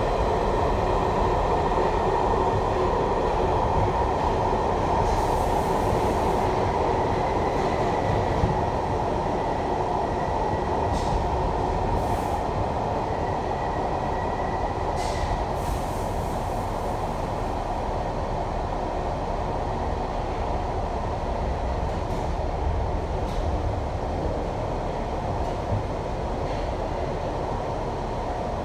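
R62A subway car running through the tunnel, heard from inside the car: steady rumble and wheel-on-rail noise, with a faint thin wheel squeal from about eight to fifteen seconds in.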